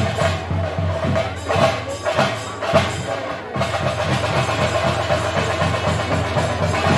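Temple festival drum ensemble playing a fast, steady beat, with a steady held tone over the drumming.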